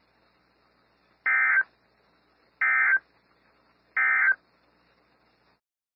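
Emergency Alert System end-of-message signal: three short, identical bursts of digital data tone (the SAME "NNNN" code), each about a third of a second long and a little over a second apart. It marks the end of the alert broadcast.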